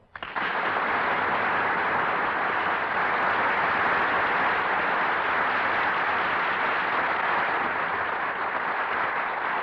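Radio studio audience applauding steadily. The applause starts abruptly and tapers slightly near the end.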